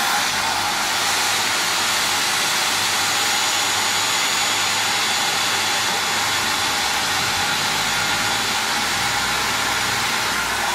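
Hand-held hair dryer blowing steadily on damp hair, a continuous even rush of air and motor.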